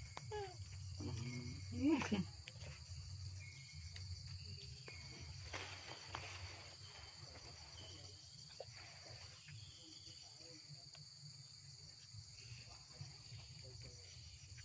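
Steady, high insect chorus buzzing without a break, with a few short rising and falling vocal sounds in the first two seconds.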